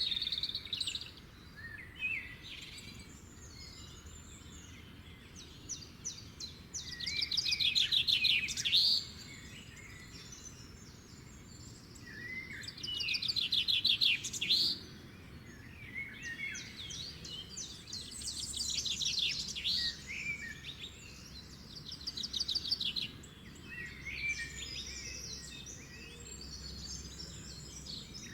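Songbirds singing: a fast trilled phrase of about two seconds, ending in a quick upward sweep, comes four times, with shorter chirps and calls between. A faint steady background hiss lies underneath.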